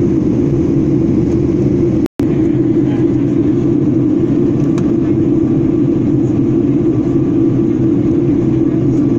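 Steady drone of an airliner cabin in flight, a constant low rumble of engine and air noise; it cuts out for a moment about two seconds in.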